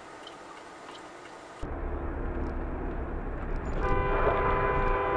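A faint hiss, then a car's low driving rumble starts abruptly under two seconds in. Near the end a car horn sounds one long, steady note.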